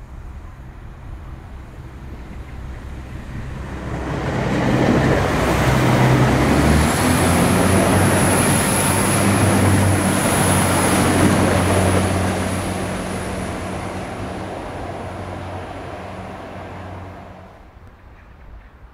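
Irish Rail 22000 class InterCity diesel multiple unit passing through at speed: underfloor diesel engines droning and wheels rumbling on the rails, building up, loudest for several seconds with a high whine, then fading away as the train recedes.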